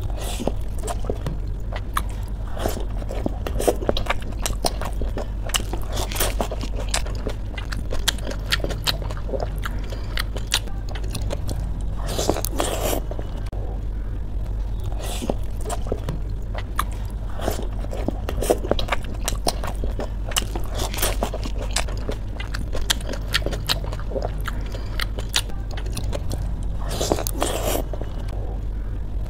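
Crisp pani puri shells being cracked open and crunched, with chewing, many short sharp crunches in an irregular run, over a steady low hum.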